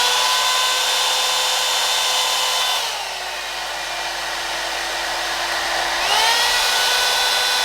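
Knock-off Revlon One Step hot air brush (hair dryer and volumizer) blowing steadily with a whining fan motor on its low, cool setting. About three seconds in the whine drops in pitch and gets a little quieter as it is switched to medium, the less powerful setting. About six seconds in it rises back to full speed on high.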